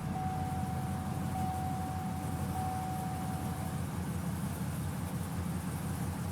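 Car engine idling just after starting, with an uneven, stumbling beat from a misfire. A faint steady high tone sounds over it and stops a little past halfway.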